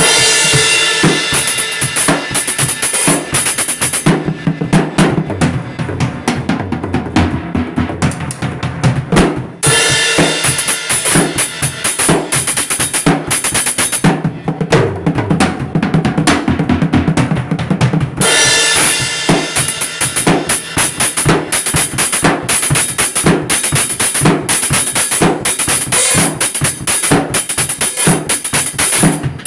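Drum kit playing continuously, with bass drum, snare and cymbals in a dense rhythm that changes pattern about ten and eighteen seconds in.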